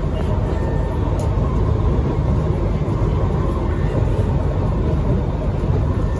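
Kawasaki Heavy Industries C151 MRT train running between stations, heard inside the passenger car: a steady low rumble from the wheels and running gear, with a faint steady whine above it.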